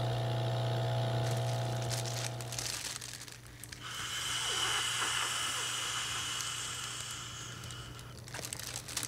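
Plastic vaporizer bag crinkling, and air hissing through its mouthpiece valve as vapour is inhaled from the bag, steady from about four seconds in until near the end. Before that, a steady low hum cuts out about three seconds in.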